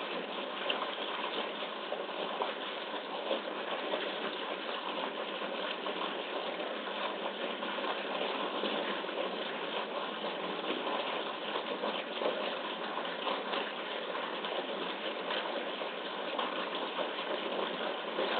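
A jet of water from an inlet pipe gushing into a pool, a steady rushing noise of falling, churning water.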